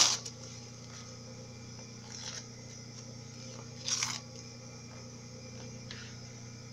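Short rustles of tissue paper being torn and pulled away from a clear vinyl pouch's stitching, the loudest a brief tear about four seconds in, with fainter ones before and after. A steady low hum runs underneath.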